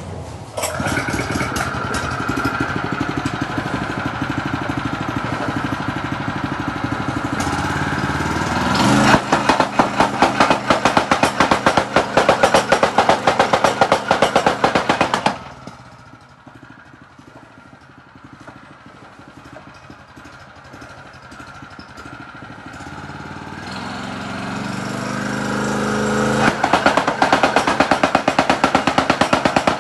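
Honda GX160 four-stroke engine of a ProQuip RMX1000 tamping rammer running steadily, then throttled up so the foot pounds rapidly for about six seconds. It cuts back suddenly to a quieter idle. Then it slowly revs up again, and the rapid pounding returns near the end.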